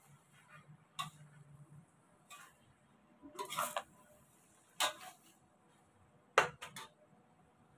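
Cooking utensils knocking and scraping against a wok while tossing stir-fried noodles and greens: a handful of sharp clacks about a second apart, a longer scrape in the middle, and the loudest clack near the end.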